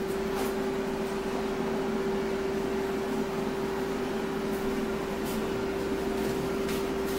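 Air fryer running with a steady, even hum and a constant tone from its fan while it cooks.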